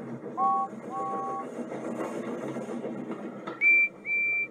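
Steam engine whistle sound effects from a children's model-railway show: two short two-note toots about a second in, then two higher, louder single-note toots near the end, over the steady running noise of a passing train.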